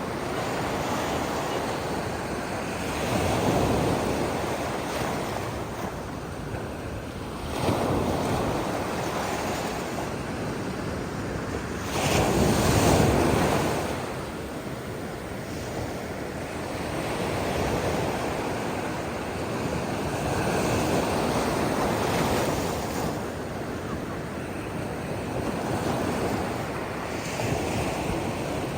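Ocean surf: waves breaking on the shore one after another over a steady wash, the loudest break about twelve seconds in.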